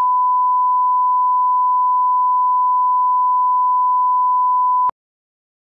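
Broadcast line-up test tone that goes with colour bars: a single steady pure tone that cuts off abruptly near the end.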